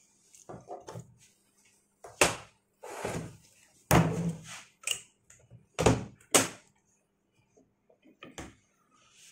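Plastic Fuji CR cassette being handled and knocked against a wooden desk: a series of sharp knocks and thuds, four of them loud, between about two and six and a half seconds in, with softer handling noises around them.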